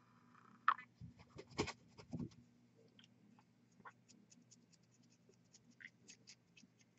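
Faint scratching, tapping and rustling from a paintbrush and fingers handling a small painted miniature, with a few louder scrapes in the first couple of seconds and light ticks after, over a faint steady low hum.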